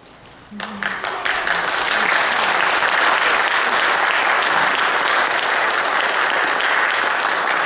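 Audience applause, starting about half a second in and holding steady.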